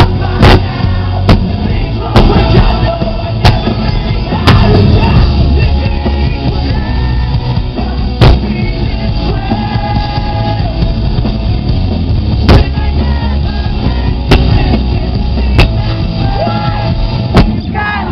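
Live rock band playing loud, with sung vocals over drums and distorted guitars. The recording is harsh and distorted, with repeated clipping cracks, from being right at the barricade beside the amps and speakers.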